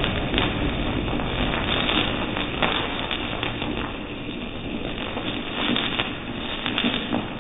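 Gudiya Asharfi matka anar, a clay-pot flower pot firework, spraying sparks with a steady hiss and scattered sharp crackles, slowly weakening as it burns down.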